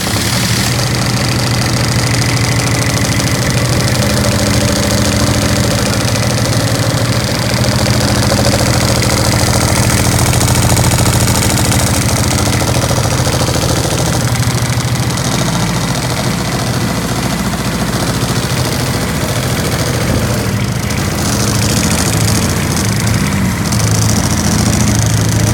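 Freshly rebuilt Kubota D722 three-cylinder diesel engine running steadily at idle on its first run after the overhaul.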